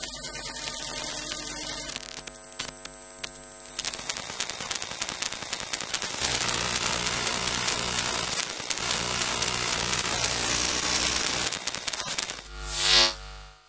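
Electrical hum, buzz and static crackle from electronic circuitry picked up with a coil pickup, the texture changing every few seconds. Near the end a loud pulsing electronic sound begins.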